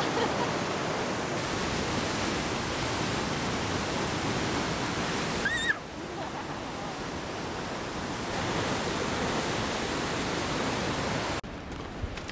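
Powerful river rushing through a narrow channel: a steady roar of white water. There is a brief high chirp about halfway through, and the roar drops away sharply near the end.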